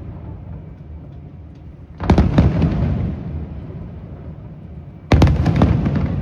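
Aerial fireworks bursting in two salvos, about two seconds and five seconds in. Each salvo is a quick cluster of booms followed by a long rumbling echo that fades away, with faint crackling in between.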